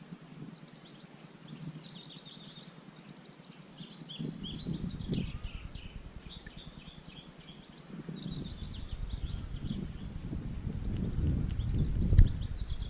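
Small birds chirping in repeated bursts of quick high chattering calls. A low rumble joins in about four seconds in and grows louder toward the end.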